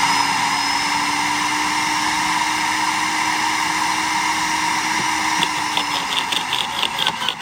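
Sun Joe CJ603E 15-amp electric wood chipper/shredder running at full speed with a steady motor whine, about as loud as a shop vac. Near the end the motor note drops slightly and a rapid clattering starts.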